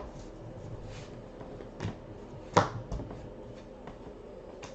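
Trading cards being handled and set down, making a few light taps and flicks; the sharpest comes about two and a half seconds in.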